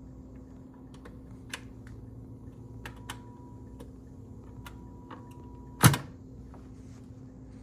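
BSR C197 record changer mechanism running with a steady motor hum and scattered light clicks, then one loud sharp clack about six seconds in.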